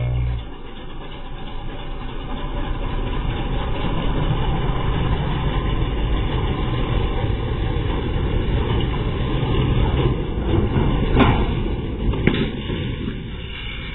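Pickup truck engine running hard under load as it pulls a heavy tanker trailer on a tow rope. About eleven seconds in come two sharp cracks a second apart, as the rope snaps and smashes the truck's back window and windshield.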